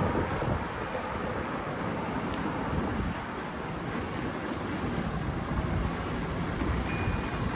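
Steady wind noise on the microphone over street noise while riding a bicycle, with a brief faint high tone near the end.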